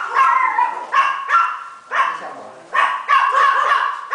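Six-week-old golden retriever puppies barking: a string of short, high-pitched barks, about two a second.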